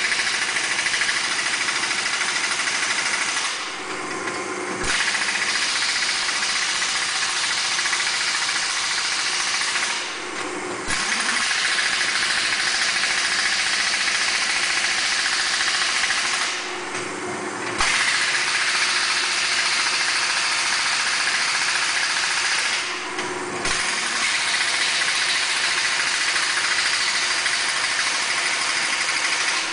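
Steady machine noise with a strong hiss from shop machinery. It cuts out for about a second roughly every six seconds, four times, and each time it comes back with a click.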